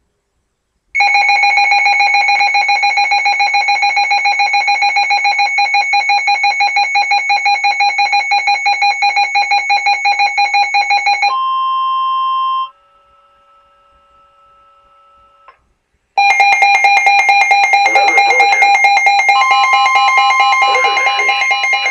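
Garbled Emergency Alert System tones from a NOAA Weather Radio severe thunderstorm warning broadcast: a harsh, rapidly pulsing electronic buzz starting about a second in and lasting about ten seconds, a short steady tone, a few seconds of faint tones, then the pulsing buzz again, with a second steady tone joining near the end. The alert signal is malfunctioning.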